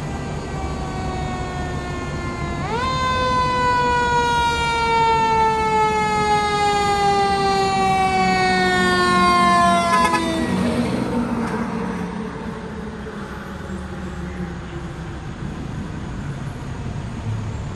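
Federal Signal Q2B mechanical siren on a 2018 Sutphen SL75 fire engine, winding up sharply about three seconds in and then coasting slowly down in pitch. About ten seconds in, as the truck passes, its pitch drops a step and the siren fades away. The truck's engine and road noise remain as it drives off.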